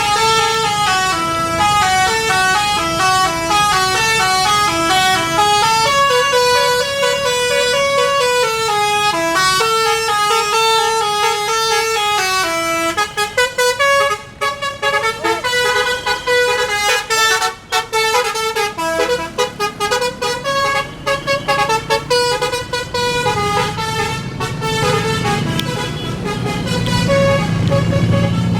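Basuri telolet multi-tone bus horn playing a quick melody of stepped notes, breaking into short choppy toots in the middle of the tune. A low engine rumble comes up near the end.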